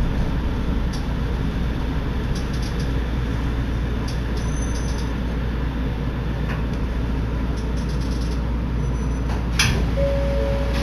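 Steady running rumble inside a Shonan Monorail suspended monorail car moving slowly along a station platform, with a few faint clicks and one sharper clack near the end. A steady tone begins just before the end.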